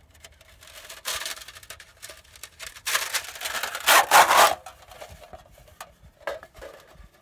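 Thin embossed metal sheets of a FluxWrap-It stove being unrolled and pulled apart by hand, rubbing and scraping against each other in irregular bursts, loudest from about three to four and a half seconds in.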